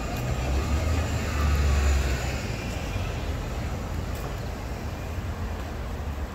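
City bus engine rumbling close by, loudest in the first two seconds and then easing off, over steady street traffic noise.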